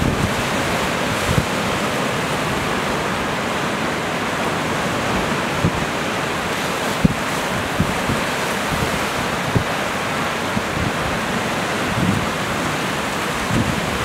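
Rough sea surf breaking and washing onto a rocky shore in strong wind: a steady rush of noise, with brief low thumps of wind buffeting the microphone every second or two.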